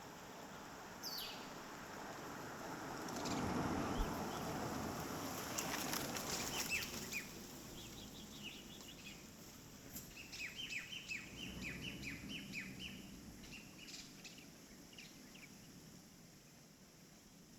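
Wild birds chirping: scattered short high calls, then a quick run of falling chirps a little past the middle. Under them a broad rushing noise swells up and fades away in the first half.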